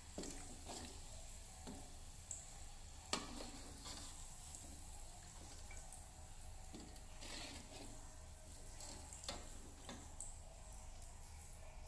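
Chicken deep-frying in oil in an aluminium wok, the oil sizzling faintly and steadily, with several sharp clinks of a metal spoon against the wok as pieces are lifted out; the loudest clink comes about three seconds in.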